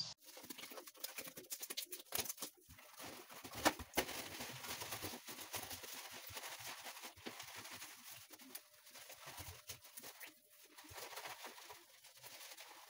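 Cloth wiping a glass shower panel, with irregular rubbing, rustling and clicks of handling.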